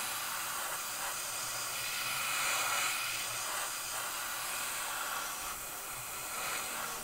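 Airbrush spraying acrylic paint: a steady hiss of compressed air from the nozzle, swelling and easing slightly as the trigger is worked.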